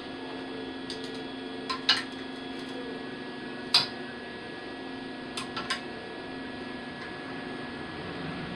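A few short, sharp metallic clicks and knocks of metal parts being handled, over a steady low hum.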